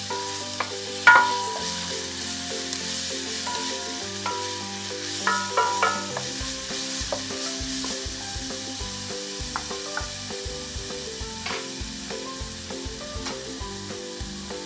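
Onion, ginger-garlic paste and green chilli sizzling in hot oil in a nonstick pan, stirred with a wooden spatula that knocks against the pan. The loudest knock, about a second in, rings briefly, and a cluster of knocks comes around five to six seconds.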